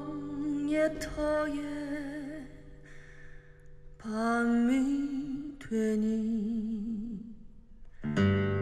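A woman singing a slow, jazz-style song with guitar accompaniment, played back through an onggi clay-jar loudspeaker. The voice sings in phrases with a short pause after the first and a dip again near the end.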